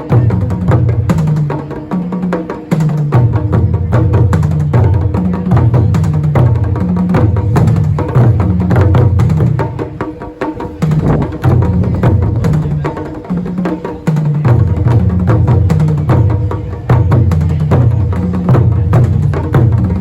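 Taiko drum ensemble playing a fast, driving rhythm: deep drum strikes layered with sharp clicks, with brief lulls about ten and fourteen seconds in.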